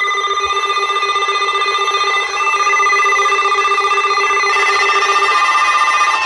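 Emergency alert signal: a loud electronic ringing made of several steady pitches that pulse rapidly, its lowest note dropping out near the end.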